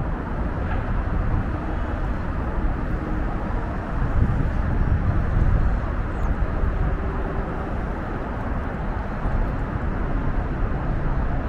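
Wind buffeting the microphone, a steady low rumble that swells and eases a little, with no distinct events.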